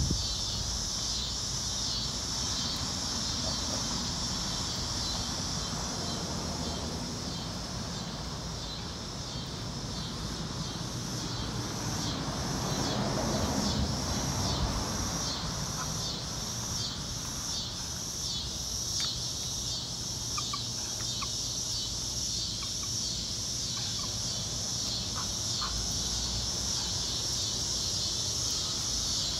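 Outdoor ambience dominated by a steady, high-pitched insect chorus pulsing about twice a second, over a low rumble of wind and handling noise, with a few faint short chirps near the end.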